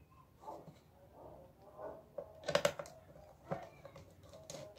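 Faint handling noise from the plastic casing of a small wireless speaker being worked open: soft scraping with a few short clicks.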